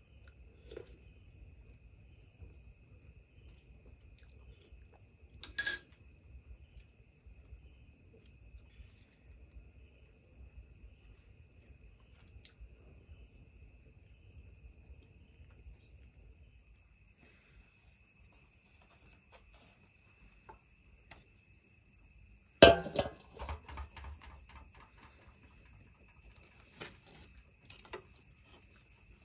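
Crickets and other night insects chirring steadily in several high tones. A sharp knock comes about a fifth of the way in, and a louder one about three quarters in, followed by a few smaller clicks.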